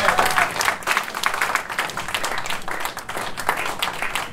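Audience applauding, many hands clapping at once, dying down gradually.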